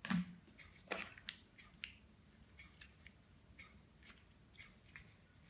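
Scattered light clicks and taps from a plastic charger plug and cardboard box packaging being handled and set down, with a few sharper clicks in the first two seconds and fainter ones after.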